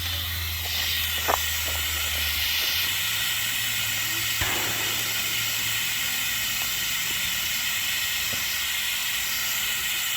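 Boiler of a live-steam miniature Welsh narrow-gauge locomotive blowing down: steam and hot water rushing out under pressure in a steady hiss as the boiler is emptied.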